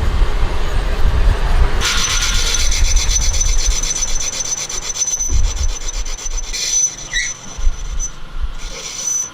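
Fast, even rasping of abrasive work on engine parts, with a steady high ring over it, starting about two seconds in after a low rumble.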